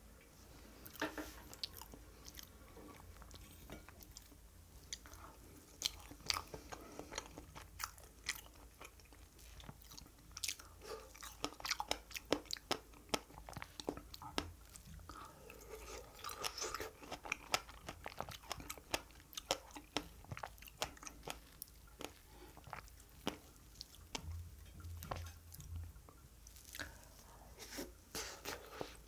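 Someone chewing and biting into strawberry cream cake with fresh strawberries, wet mouth sounds with many small, irregular clicks and smacks.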